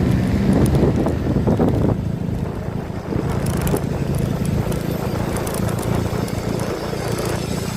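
A vehicle running steadily, a low rumble with wind on the microphone, a little louder in the first two seconds.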